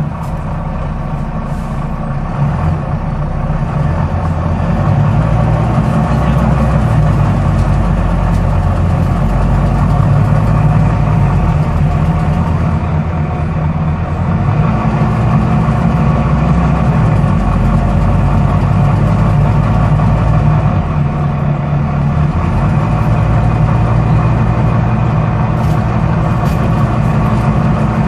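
Volvo B9TL double-decker bus running, its engine droning steadily and growing a little louder over the first few seconds, with the clicking noise the bus has developed.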